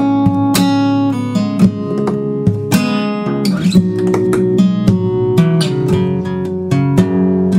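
Acoustic guitar music: a steady run of plucked notes and strummed chords.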